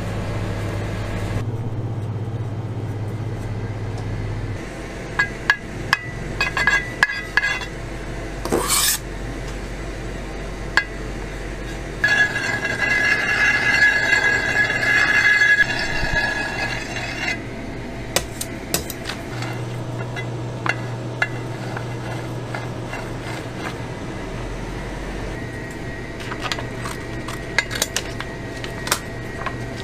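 Cake-decorating sounds: scattered clicks and clinks of metal tools, and for several seconds in the middle a steel scraper scraping cream smooth around a cake turning on a metal turntable. A steady low hum sits behind it all.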